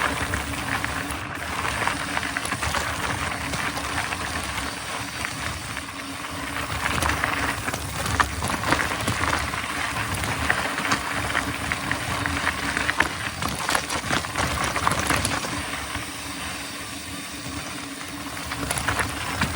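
Mountain bike rolling over a dirt forest trail: a steady rushing noise from the tyres and moving air, with frequent small knocks and rattles from the bike.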